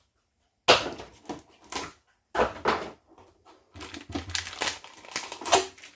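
Packing corner protectors being pulled off a boxed plastic display case, with packaging crinkling and rustling. There are two sharp scrapes about a second in and a little after two seconds, then a run of rapid crinkling near the end.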